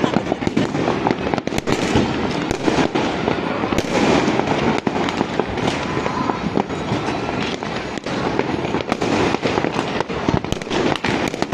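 New Year fireworks and firecrackers going off without pause: a dense run of sharp bangs and crackles over a continuous din.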